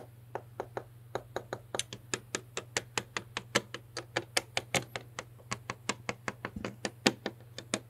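LEGO minifigure being hopped along a plastic LEGO baseplate by hand: a rapid, uneven string of sharp plastic taps, several a second, standing in for footsteps.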